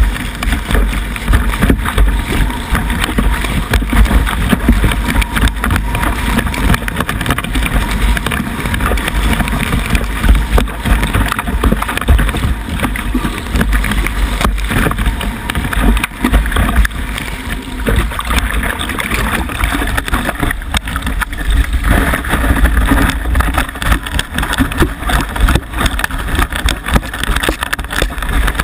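Wind buffeting an action camera's microphone in a steady heavy rumble, mixed with the continuous rush of water spray as a kiteboard rides fast across the water, its loudness jumping unevenly.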